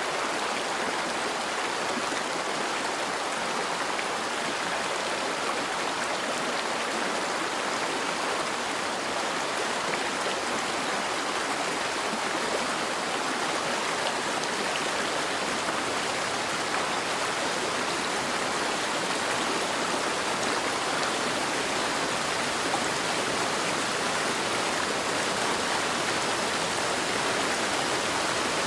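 Steady heavy rain: an even, unbroken hiss of many drops with no distinct impacts or changes.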